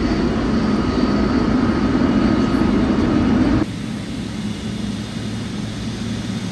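Jet aircraft engine noise on an airport apron: a steady rumble with a faint high whine. About three and a half seconds in it drops abruptly to a quieter, duller rumble.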